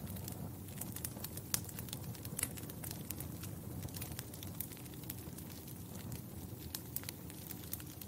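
Wood fire crackling in a fireplace: a steady low rumble of flames under irregular sharp pops and snaps, several a second, with a few louder pops about one and a half and two and a half seconds in.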